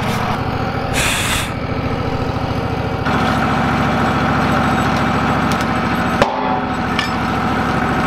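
Wood-Mizer portable bandsaw mill's engine running steadily, getting a little louder about three seconds in. A short hiss comes about a second in, and a sharp wooden knock about six seconds in as the squared timber is turned over on the mill with a cant hook.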